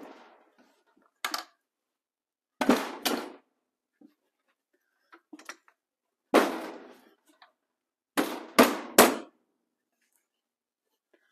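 Soft-faced mallet striking the aluminium cases of a Suzuki TS185 two-stroke engine during teardown, knocking the case halves loose. About seven blows land in groups: one, then two, then one, then three in quick succession near the end.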